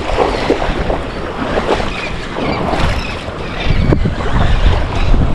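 Wind buffeting the microphone in gusts, with water sloshing and waves breaking underneath.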